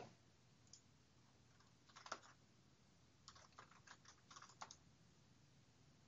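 Faint computer keyboard typing a web address: one keystroke about two seconds in, then a quick run of light keystrokes over the next second and a half.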